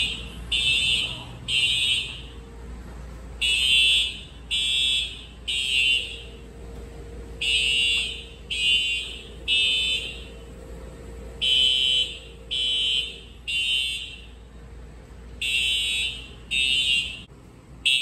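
Simplex TrueAlert fire alarm horns sounding the temporal-three evacuation signal: three short, loud horn blasts, then a pause, repeating about every four seconds, with echo trailing each blast.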